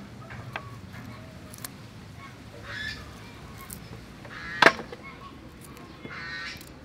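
Small knife cutting and snapping cauliflower florets, making scattered light clicks and one sharp snap about two-thirds of the way through. A bird calls twice in the background, goose-like.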